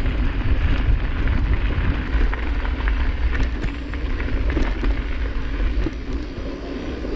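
Enduro mountain bike descending at speed: wind buffeting the microphone, tyres crackling over the rough surface and a steady run of small rattles and clicks from the bike, a little quieter near the end.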